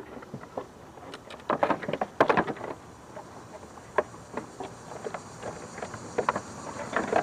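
Scattered clicks and knocks of engine parts being handled and fitted into place, with a quick flurry about two seconds in.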